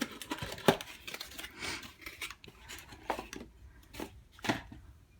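Packaging of a mug being opened by hand: scattered rustles of cardboard and wrapping with sharp clicks, the sharpest about a second in.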